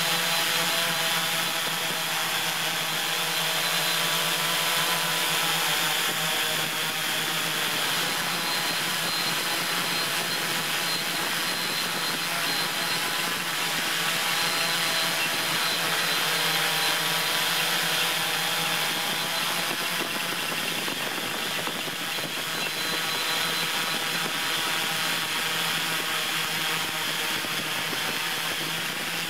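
Multirotor drone's motors and propellers running steadily: a constant hum of several stacked tones over a hiss.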